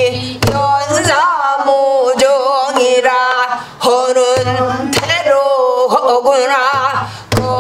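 A woman singing a pansori danga in full, rough-edged voice, holding long notes with a wide, wavering vibrato and breaking them with short pauses; a few sharp knocks fall between phrases.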